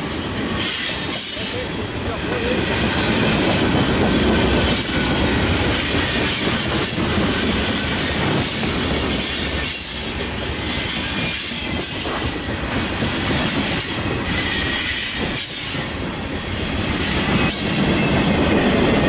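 Freight cars rolling past: a steady rumble and rattle of steel wheels on the rails, with a faint high wheel squeal now and then.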